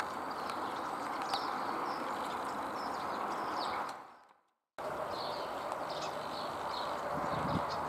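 Outdoor garden ambience: small birds chirping repeatedly over a steady background hiss. About halfway through the sound fades out briefly and comes back abruptly, and a faint low hum with a couple of soft thuds enters near the end.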